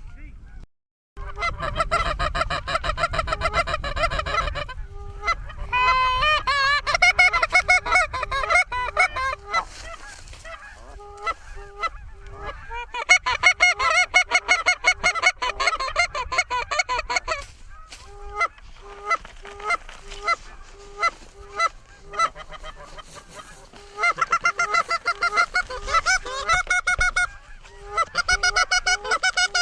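Goose honks and clucks, many overlapping calls in fast runs, with sparser single honks between the runs. The sound cuts out briefly about a second in.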